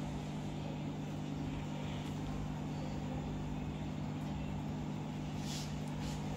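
A steady low hum made of several low tones, with two faint, brief scratchy sounds near the end.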